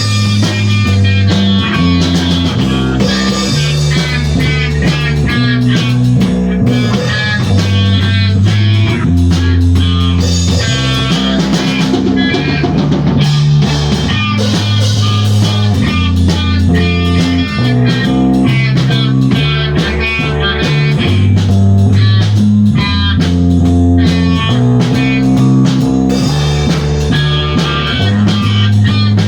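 Instrumental rock played by a trio of guitar, bass guitar and drum kit. The bass moves between held low notes under the guitar and steady drumming.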